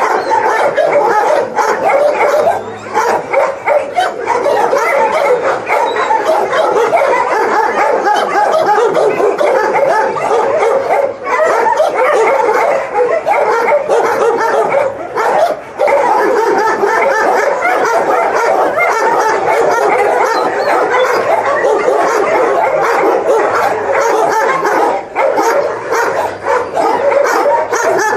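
Many shelter dogs in their kennel pens barking and yelping at once, a loud, continuous din of overlapping calls.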